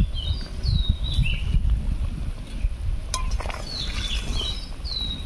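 Koi fish curry bubbling at a boil in a metal karahi, a steady low rumble, with a spatula clicking against the pan about three seconds in. Small birds chirp short falling calls over it.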